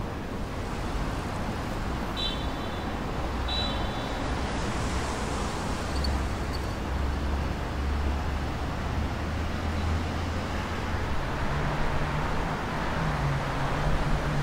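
City traffic noise: a steady hiss with the low rumble of vehicle engines, strongest in the middle. Two short high-pitched beeps about two and three and a half seconds in.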